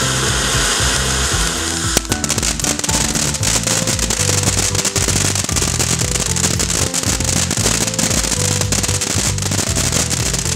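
Cup fountain firework burning: a steady hiss of spraying sparks, then a sudden change about two seconds in to a dense stream of small crackles. Background music with a steady bass line plays throughout.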